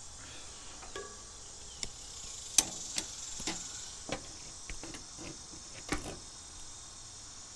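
Scattered sharp clicks and knocks of something being handled and set down, about a dozen over a few seconds, the loudest about two and a half seconds in, over a steady high chirring insect chorus.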